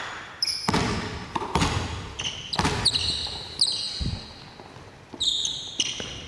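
A basketball bouncing on a hardwood gym floor, with a few hard thuds a second or so apart, mixed with many short, high squeaks of basketball shoes on the court.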